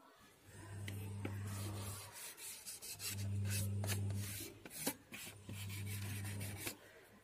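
A cotton pad soaked in nail polish remover rubbed over a plastic switchboard plate, scrubbing off dirt marks. The rubbing comes in three bouts of about a second each, each carrying a low hum, with scattered small clicks and scrapes.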